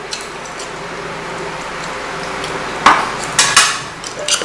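Cutlery clinking against bowls and dishes at a meal, with a few sharp clinks in the second half.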